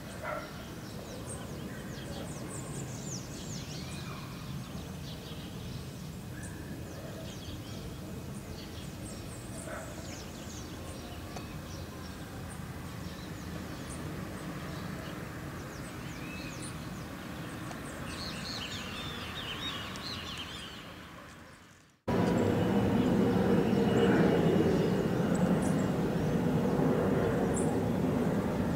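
Birds chirping and calling over a faint steady background hum; this fades out about three-quarters of the way through. After a brief silence, the louder, steady rumble of a jet airliner's engines takes over.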